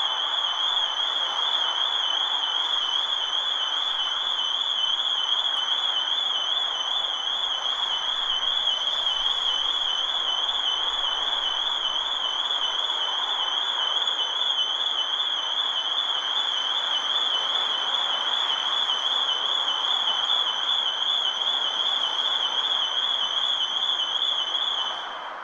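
Electronic security alarm sounding a continuous high-pitched warbling tone over a steady noise, then cutting off near the end.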